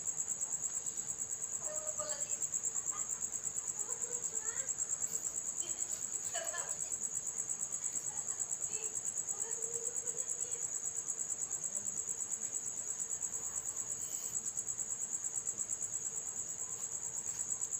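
Crickets trilling: a steady, high-pitched, pulsing chirr.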